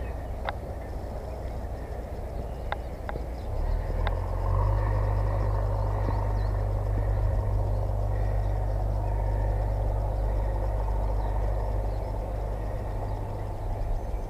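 Wind buffeting the camera microphone, a low rumble that grows louder about four seconds in, with a few faint clicks and bird chirps above it.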